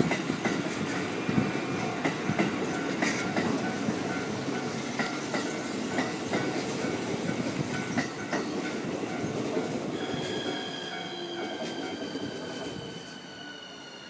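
Keikyu electric train rolling past close by, its wheels rumbling and clacking over the rail joints. The sound fades as the train moves away. About ten seconds in, a high whine sets in and slowly falls in pitch.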